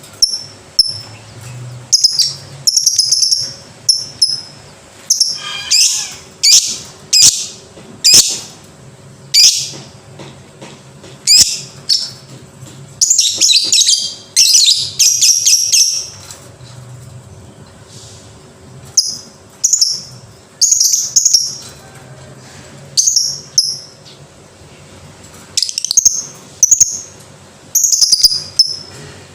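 Lovebird giving shrill, chattering calls in repeated bursts, some short and one lasting a few seconds, with brief pauses between.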